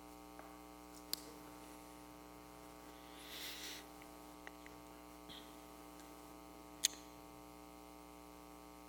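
Steady electrical mains hum from the sound system during a pause in speech, with two faint clicks and a brief soft hiss about three and a half seconds in.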